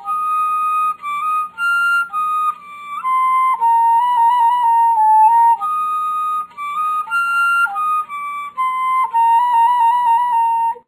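Solo melody on a flute-like instrument, a slow tune of held notes, standing in for the nightingale's song. It stops abruptly at the end.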